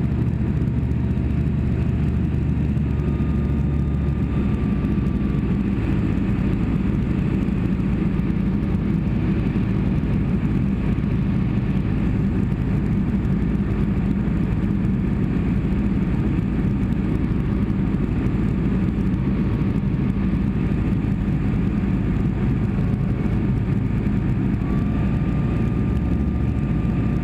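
Light single-engine aircraft's piston engine and propeller heard from inside the cockpit, running steadily at slightly reduced power for a descent. The engine note shifts a little about four seconds in and again near the end.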